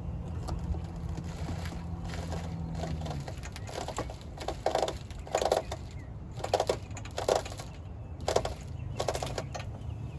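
Metal car parts being worked on by hand: a low steady hum stops about three seconds in, then comes a string of about seven short clunks and scraping creaks.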